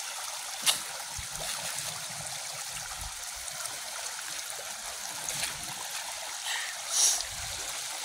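Small creek trickling steadily, with a few brief knocks or rustles, the loudest just under a second in and another shortly before the end.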